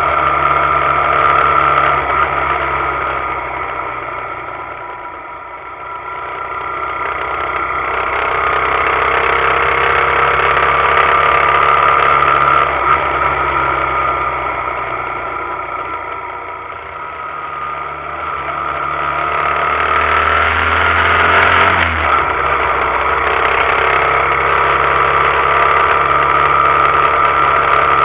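Suzuki GZ125HS motorcycle's 125 cc single-cylinder four-stroke engine running under way, heard muffled through an action camera's waterproof housing. The engine note drops away twice, about five and seventeen seconds in, and builds up again each time.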